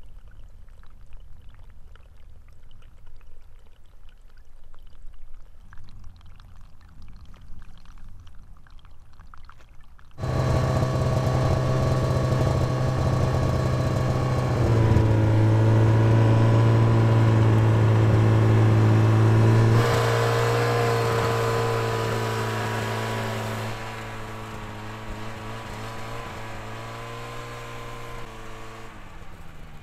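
A snowmobile engine comes in abruptly about ten seconds in and runs loud and steady while the machine rides through snow. Its pitch and level shift in steps a few times before easing off near the end. Before that there is only faint crunching.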